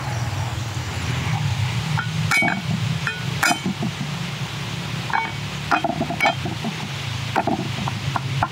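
A utensil clinking against a cooking pot several times in short, irregular strikes, each with a brief ring, over a steady low hum.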